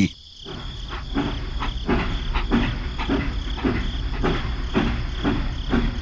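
Crickets chirping steadily, with a regular soft knock about twice a second.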